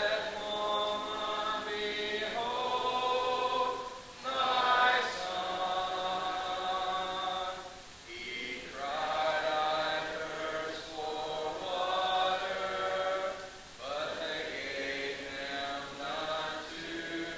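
A hymn sung a cappella, with no instruments: a man's voice leads the congregation in long held phrases of about four seconds, with short breaths between them.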